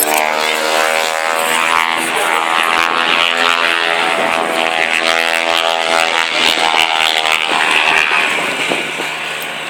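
An airplane flying over, a steady engine drone made of several tones whose pitch drifts slightly as it passes, easing off near the end.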